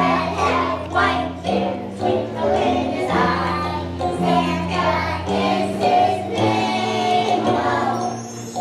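A choir of young children singing a Christmas song over accompaniment music with held bass notes.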